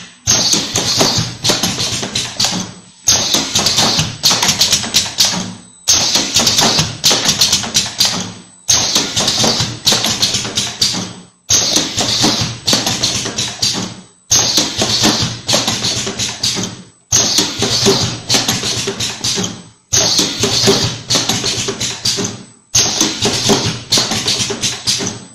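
Automatic bulb cartoning machine running in cycles: bursts of dense mechanical tapping and clatter, each about three seconds long and broken by a brief pause, repeating evenly. It stops right at the end.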